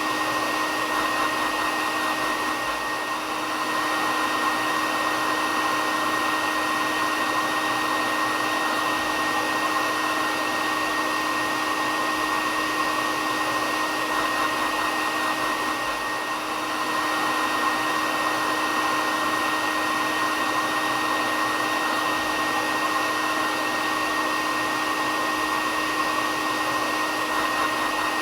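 Hair dryer running steadily: an even rush of air with a steady whine above it.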